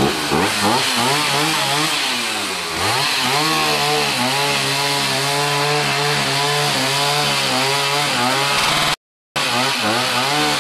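Two-stroke chainsaw revving up and down, then held at a steady high speed for about five seconds while cutting fallen tree branches. The sound cuts out for a moment near the end, then resumes.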